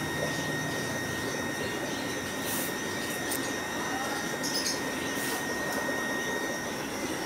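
Steady hiss of aquarium aeration: air pumps running and air bubbling up through goldfish tanks, with a thin steady high whine running through it.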